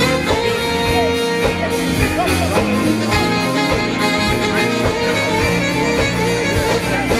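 Live band playing a steady groove: drum kit and electric bass under electric guitar, with trombone and saxophone horns.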